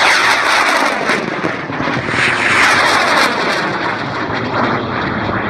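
Two M-class high-power rocket motors burning at once as the rockets climb away: a loud, rough roar full of crackle, easing off slightly toward the end.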